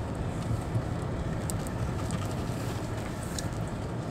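An off-road car driving on a loose gravel track, heard from inside the cabin: a steady low rumble of engine and tyres, with scattered small ticks.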